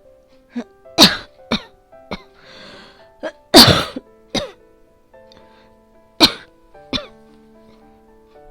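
A woman's coughing fit during an asthma attack: about nine harsh coughs, a quick cluster in the first four seconds with a rasping breath between, the loudest near the middle, then two more. Soft background music with sustained notes plays underneath.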